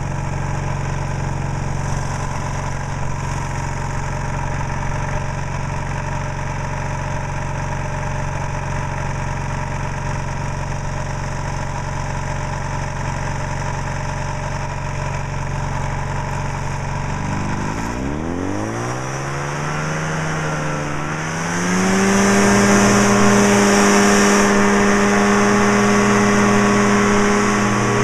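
Powered parachute's engine and propeller idling steadily, then revving up about two-thirds of the way in as the throttle is opened. The pitch climbs and wavers, then settles into a louder, higher steady run, with the wing inflating and the cart starting its takeoff roll.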